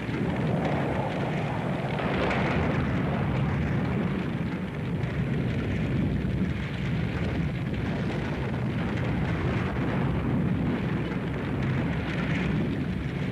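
Continuous rumbling, rushing noise of the Tacoma Narrows Bridge deck collapsing and crashing into the water below, heard on an old film soundtrack, with no separate sharp impacts.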